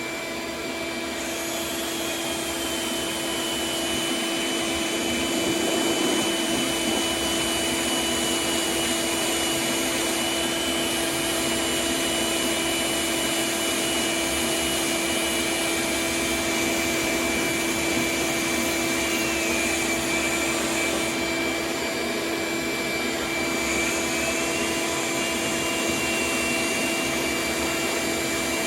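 Vacuum motor running steadily, with a high whine that shifts pitch slightly a couple of times.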